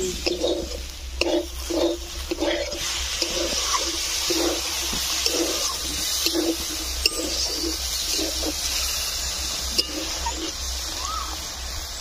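Metal spatula scraping and stirring diced potatoes in a metal kadai. From about three seconds in, water poured into the hot pan hisses and sizzles, with the stirring going on.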